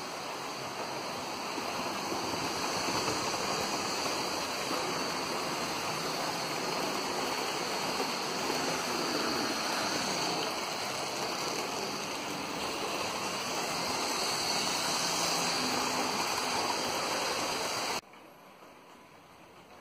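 OO gauge model train, a Class 56 diesel locomotive hauling coaches, running along the layout's track: a steady rushing rattle of wheels and motor that grows a little louder as it passes close, then cuts off abruptly near the end.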